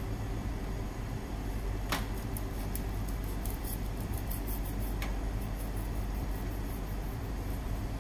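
A kitchen knife slicing the hard scutes off the sides of whole horse mackerel, with two short, sharp scraping cuts about two and five seconds in and faint clicks between them. A steady low mechanical hum runs underneath.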